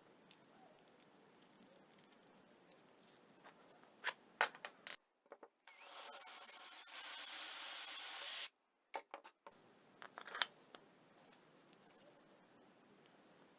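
Workshop sounds: scattered taps and clicks of wood and tools being handled, and a power tool running for about three seconds in the middle with a faint high whine.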